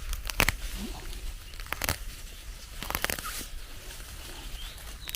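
Scattered crisp snaps and rustles of wild onion stems being picked and handled by hand, a few at a time at irregular intervals, over a low steady rumble.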